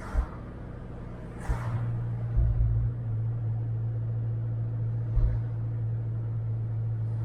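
A car driving along a street: a steady low engine and road drone that gets louder about a second and a half in, with a few short low thumps.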